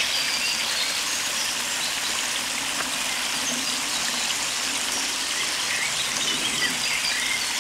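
Pond water spilling over the rim of a concrete overflow drain into its chamber: a steady splashing rush. A few short bird chirps sound over it.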